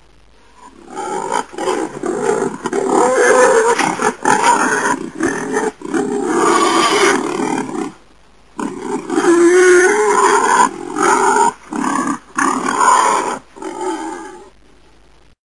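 Wild boar grunting and growling in rough, throaty calls, in two long runs split by a short pause about eight seconds in.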